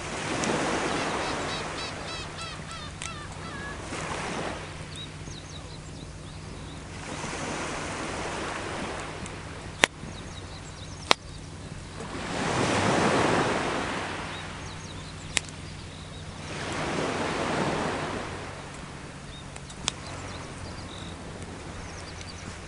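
Sea waves washing ashore in slow swells about every four to five seconds, with four sharp pops from a crackling wood campfire.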